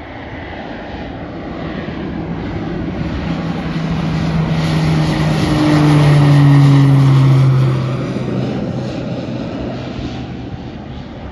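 Pilatus PC-12 single-engine turboprop passing on departure: its turbine and propeller grow louder, peak about six to seven seconds in with the propeller tone dropping in pitch as it goes by, then fade away.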